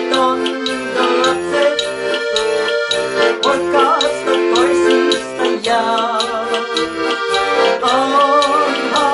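Ballone Burini Cantus 34a piano accordion playing a lively polka: melody and chords over an even oom-pah bass of about two beats a second.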